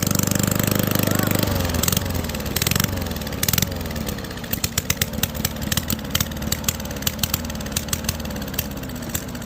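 Straight-piped single-cylinder lawn mower engine, muffler removed, running flat out, then dropping to a lower, rougher speed about a second and a half in. A few sharp exhaust cracks come between about two and three and a half seconds in.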